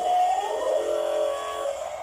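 Background music with sustained synthesizer-like tones that rise and change in pitch.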